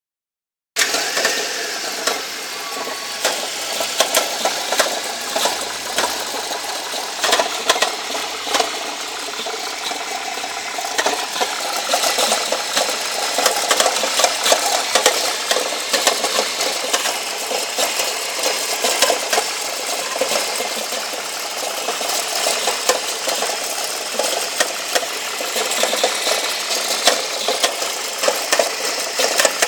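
Nissan Teana J31 engine running with a rapid, irregular knocking rattle from the alternator, which the owner takes for a knock in the alternator.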